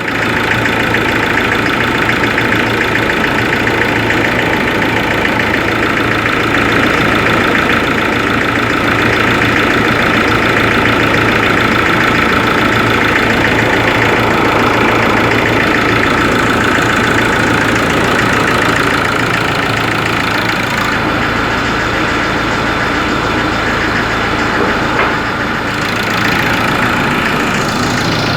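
Ford Ranger 3.0 four-cylinder turbodiesel engine idling steadily with an added mechanical noise, a fault that shows when the engine is cold and that mechanics and an injection-pump specialist could not trace.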